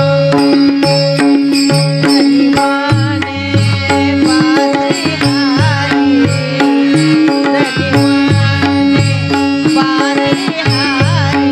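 Instrumental interlude of a Marathi gavlan devotional song: a hand-drum rhythm over a held low note, with a melody line that slides and bends.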